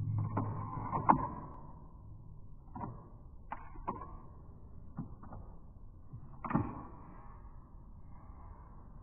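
A series of about eight short, sharp clicks and knocks, irregularly spaced, the loudest about a second in and another strong one near the end.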